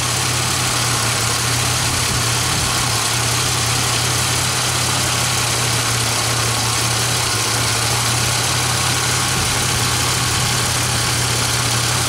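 2003 Pontiac Grand Am GT's 3400 V6 idling steadily, heard from over the open engine bay. The engine has been running rich and a bit shaky, which the owner puts down to a failing front oxygen sensor.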